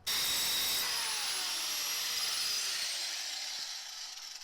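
Grinder grinding down the edge of a steel fender washer that is spun on a bolt in a drill, a harsh grinding noise with a high whine. It starts abruptly, then falls in pitch and fades over the last couple of seconds as the tools wind down.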